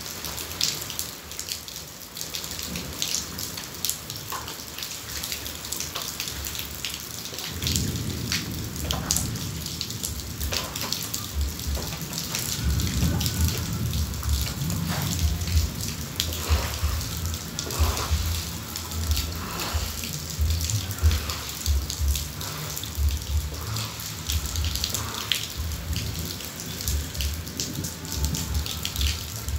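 Heavy rain falling steadily, with drops spattering close to the microphone. From about eight seconds in, a low rumbling comes and goes under it.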